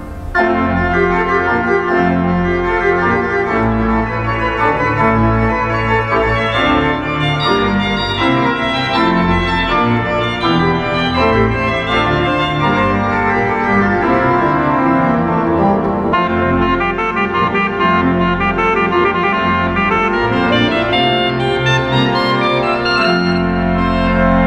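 Church pipe organ playing full chords over a deep pedal bass, the inner voices moving while the chords are held. A new chord comes in loudly right at the start after a brief break, and near the end the music settles onto a long held chord with a heavier bass.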